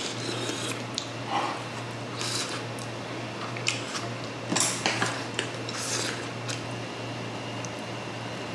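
A person slurping hot sundae gukbap off a wooden spoon and scooping more from an earthenware pot, with several short slurps and mouth sounds, the loudest a little past halfway. A steady low hum runs underneath.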